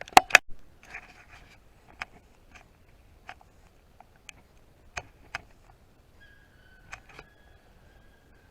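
Two sharp, loud clicks in quick succession, then scattered lighter ticks and knocks, like handling noise on the camera or gear. A faint steady high tone joins in near the end.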